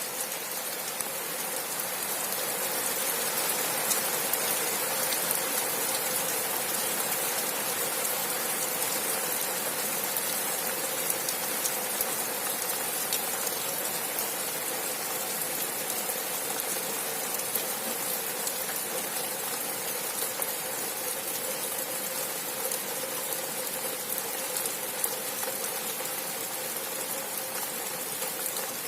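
Steady rain falling, an even hiss of rainfall dotted with the ticks of individual drops hitting surfaces.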